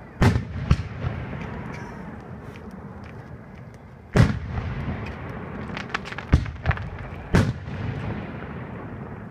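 Aerial firework shells bursting overhead in a string of loud booms: two close together at the start, one about four seconds in and three more between six and seven and a half seconds in. Fainter crackles sound between them.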